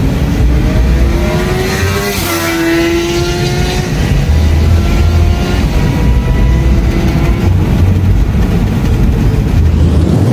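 A Suzuki GSX-R sportbike overtaking at well over 100 mph, its engine whine dropping sharply in pitch as it passes about two seconds in, then fading away ahead. Heard from inside a moving car over steady road rumble.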